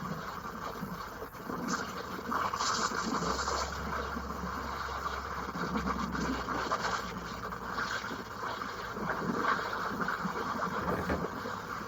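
Hurricane wind: a steady rushing noise that swells and eases in gusts, with a low rumble for a few seconds about a third of the way in, heard over a phone video call.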